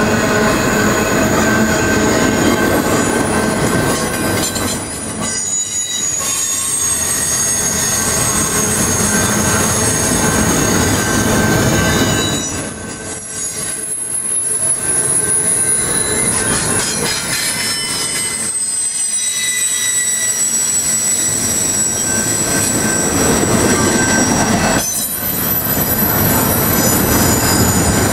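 Double-stack intermodal well cars rolling past on steel wheels, loud and steady, with high-pitched wheel squeal in several thin tones that come and go. The sound dips briefly four times, roughly every six seconds.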